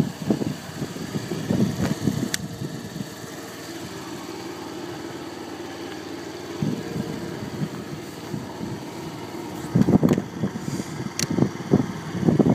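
Sukida Dragonfly 50cc scooter engine idling steadily, with irregular low rumbles on top, loudest about ten seconds in.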